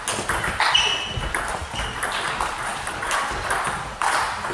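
Table tennis rally: the plastic ball clicks off the bats and pings off the table in a quick back-and-forth of hits and bounces, several a second.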